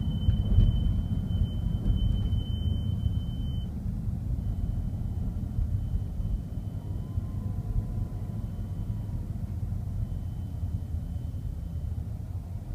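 Faint high-pitched beeping from the glovebox and front console area of a 2011 BMW X5 xDrive50i, heard inside the cabin over the low rumble of the car moving slowly. The tone holds steady, then drops much fainter a little over three seconds in and carries on barely audible.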